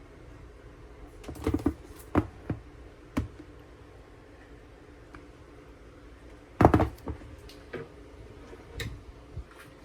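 Hard plastic egg storage box being handled, giving scattered clicks and knocks, with the loudest clatter of several quick knocks about two-thirds of the way through.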